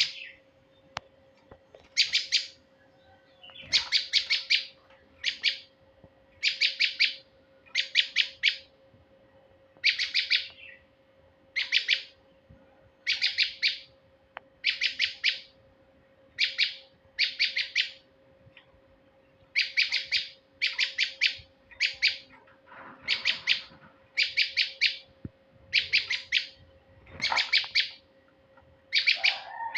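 Male prinia (prenjak) calling: short bursts of rapid, sharp chips, repeated about every second or two, some twenty bursts in all, as used to lure male prenjak.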